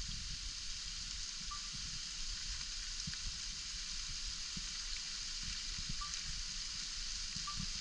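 Waterfall's falling water and spray making a steady rushing hiss, with a few brief faint chirps.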